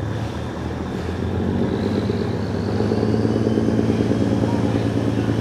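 Diesel engine of a large wooden Vietnamese trawler running with a steady drone. It grows louder over the first few seconds as it belches black exhaust smoke.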